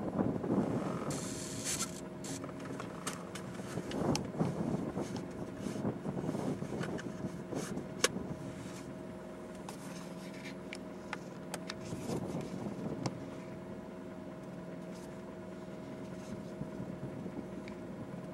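Car engine idling, a steady hum heard inside the cabin, with a few louder bursts of bison hooves stepping on the asphalt close by: near the start, about four seconds in and again around twelve seconds in. A single sharp click about eight seconds in.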